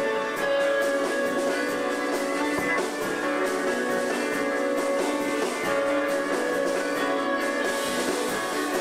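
Live instrumental chamber-rock from a small ensemble: bowed strings holding long, sustained notes over guitar.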